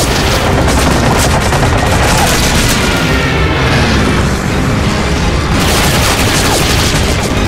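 Battle sound effects of a fighter plane strafing a truck convoy: rapid machine-gun fire and heavy booms of impacts, mixed with dramatic music.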